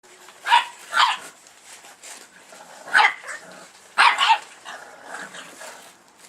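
A sleeping bull-breed dog snoring in short, loud snorts: two close together about half a second and a second in, another about three seconds in, and a longer double snort about four seconds in, with softer rasping breaths between.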